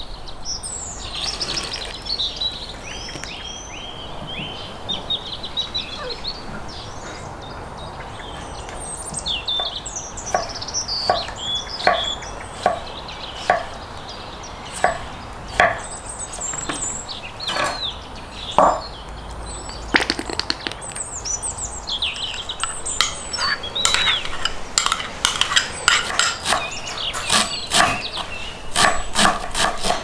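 A chef's knife cutting on a wooden cutting board: single, evenly spaced cuts through pickled cucumbers, then faster chopping of fresh dill in the last few seconds. Birds chirp throughout.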